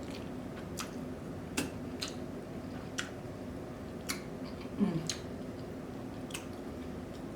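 Close-up eating sounds: chewing spaghetti, with wet mouth clicks and smacks about once a second over a steady low hum. A short voiced 'mm' near five seconds in.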